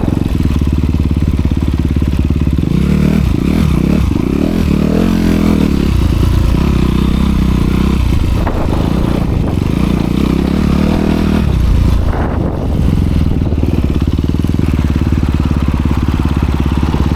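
Honda CRF250R dirt bike's single-cylinder four-stroke engine running through its dual exhaust, revving up and down as the bike is ridden, with a brief drop in revs about twelve seconds in.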